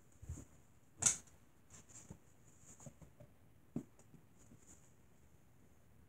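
Soft handling sounds of a baby bottle and a baby doll: a sharp knock about a second in, a smaller knock near four seconds, with light rustles and clicks between.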